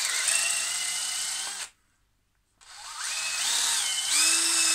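Cordless DeWalt drill boring into a hand-held block of wood, run twice. Each run starts with a rising whine as the motor speeds up, then holds steady. The first stops just before two seconds in, and the second starts about a second later and runs on.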